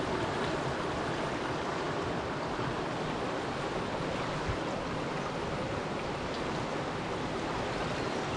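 Fast-flowing river in flood, rushing steadily, with one soft low knock about halfway through.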